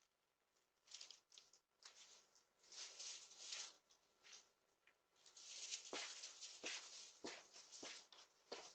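Faint, irregular rustling and scuffing, with a few light taps in the second half.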